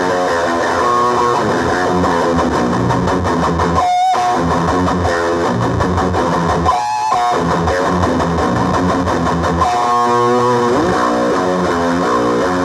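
Electric guitar played through a JHS Bonsai overdrive pedal into an amp: distorted notes and chords, broken by two short pauses about four and seven seconds in.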